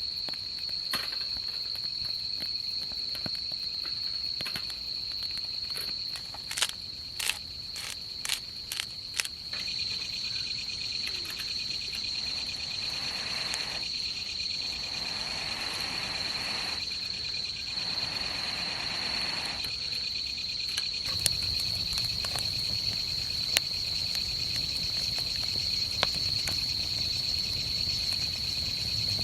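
Insects trilling steadily at a high pitch, with a second, lower trill joining about a third of the way in. Around a quarter of the way through comes a quick run of sharp clicks or snaps, and a soft hiss rises and fades in the middle.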